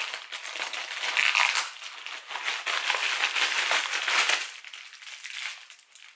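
Plastic parcel packaging crinkling and crackling as a white plastic mailer bag is pulled open and the clear plastic bag inside is taken out. The crackling dies down about four and a half seconds in.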